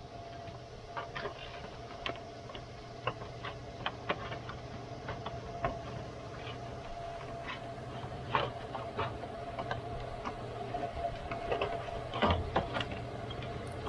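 Plastic radiator fan shroud being wiggled and slid out of an engine bay: irregular clicks, knocks and scrapes of plastic against plastic and metal, with a louder cluster of knocks near the end. A steady low hum and a steady tone run underneath.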